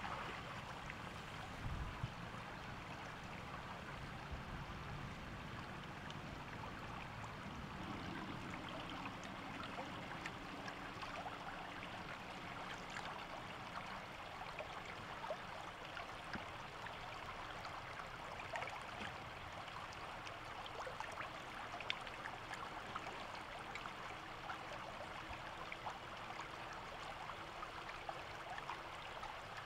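Shallow floodwater running steadily over a muddy bank into a bamboo-fenced fish trap pool, with scattered short ticks through the flow.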